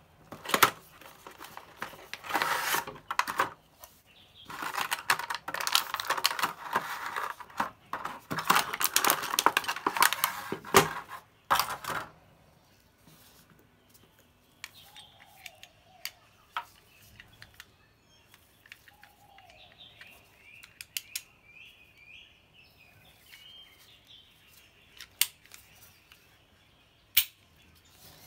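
Unboxing a folding alloy card-style toy gun. For the first twelve seconds there is loud rustling of the box and packaging, full of clicks. After that come sparse, sharp clicks of the small hard parts being picked up and handled, with one louder click shortly before the end as the card is unfolded.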